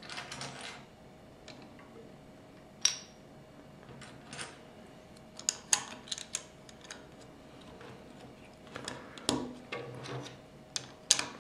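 Lego bricks being handled and pressed together on a wooden tabletop: scattered sharp plastic clicks and taps, a dozen or so, with the loudest snaps about three seconds in and near the end.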